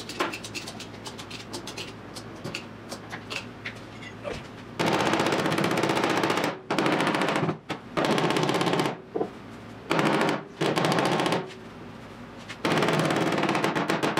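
Pneumatic air hammer rattling in rapid bursts of one to two seconds against the rusty steel lower edge of a Triumph GT6's rear fender, starting about five seconds in. Before that, only scattered light taps and clicks.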